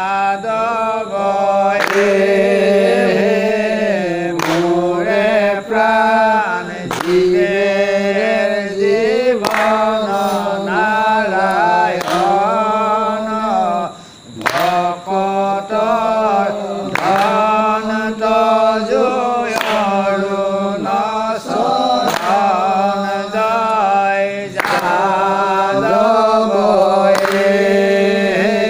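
Assamese naam-prasanga devotional singing: voices chanting a repeated melodic line, with a sharp beat about every two and a half seconds. The singing breaks off briefly about fourteen seconds in.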